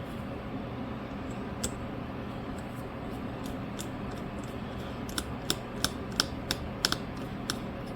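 A run of light, sharp clicks and taps of small repair tools against the phone, about eight of them in the second half, over a steady low hum.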